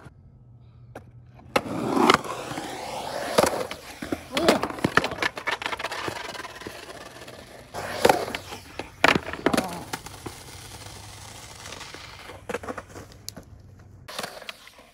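Skateboard wheels rolling over concrete, with several sharp knocks of the board against the ground, the loudest about two and eight seconds in. The rolling starts about a second and a half in.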